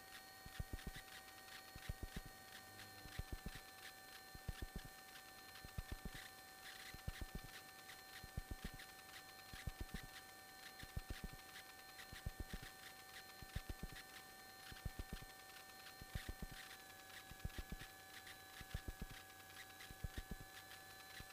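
Faint electrical whine on the aircraft's radio/intercom audio between transmissions, with a short cluster of clicks repeating about once a second.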